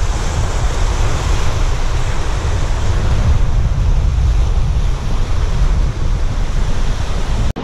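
Surf breaking and washing up the beach, with wind buffeting the microphone in a steady low rumble; it cuts off suddenly near the end.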